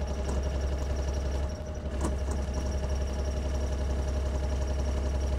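Takeuchi TB045 mini excavator's diesel engine running steadily while the boom and bucket are worked through their motions, with a steady high tone over the low hum. The low hum dips briefly about a second and a half in, and a sharp click comes about two seconds in.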